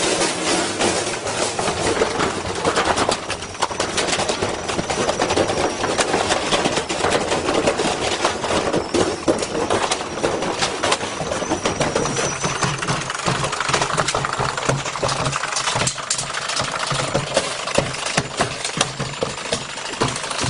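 Washing machine spinning with a heavy piece of iron in the drum, banging and clattering rapidly and without let-up as the load throws the drum off balance. A steady low motor hum comes in about halfway.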